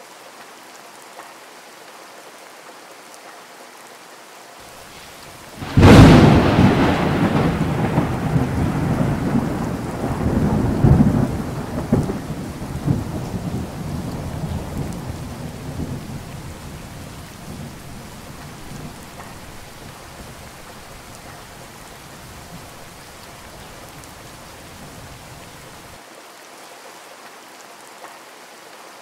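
Steady rain falling, with one thunderclap about six seconds in: a sudden sharp crack, then a low rolling rumble that swells again a few times and fades away over the next ten seconds or so.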